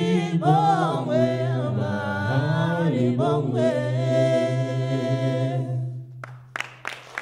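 A three-voice a cappella group singing in close harmony over a sustained low bass note, with no instruments. Near the end the upper voices stop and the bass note holds on alone for about a second as the song ends, while the first scattered claps of applause come in.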